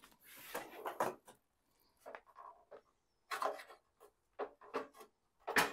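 A short scraping rustle in the first second, then about five light knocks at irregular intervals, the last one the loudest, just before the end.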